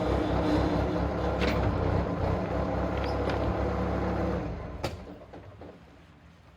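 An engine running steadily, then dying away about four and a half seconds in, with a sharp click just after.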